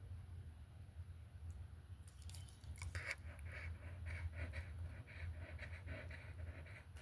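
Dog chewing: a quick run of small wet crunching sounds, several a second, starting a few seconds in, over a steady low hum.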